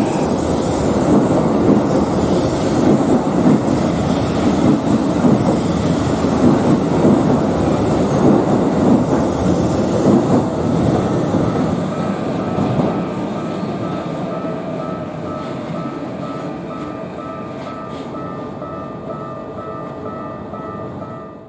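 A Keikyu electric train runs through the level crossing, its wheel and running noise loud for the first ten seconds or so and then fading away. A level-crossing warning bell rings in quick repeated beats, clearly heard from about eleven seconds in.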